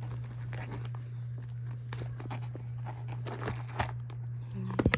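Rustling and soft clicks of items being handled and pushed into a leather handbag, with a quick cluster of sharper clicks near the end, over a steady low electrical hum.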